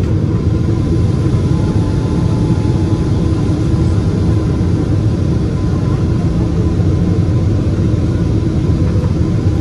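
Steady low rumble of a Boeing 777 airliner's engines and airflow, with a faint steady tone above it.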